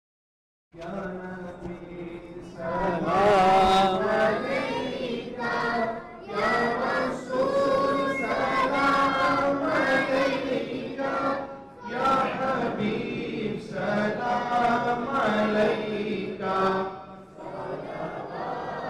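A group of voices singing an Islamic devotional chant, with no instruments, in phrases of a few seconds separated by short breaks. It starts just under a second in.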